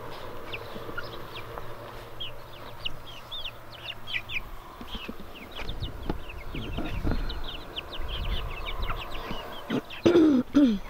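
Small flock of backyard chickens calling in their pen, with many short high chirps throughout. Two loud calls falling in pitch come near the end.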